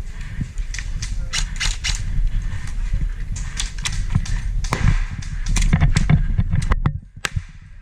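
Airsoft guns firing in irregular single shots and short strings of sharp cracks, over a steady low rumble, thinning out near the end.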